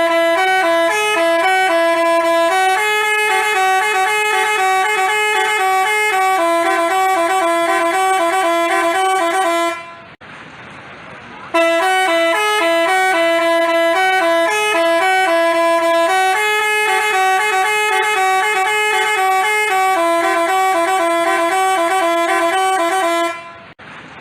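Basuri telolet multi-tone bus horn playing its tooting melody loudly. The tune stops for about a second and a half near the middle, leaving only a fainter rushing noise, then plays again.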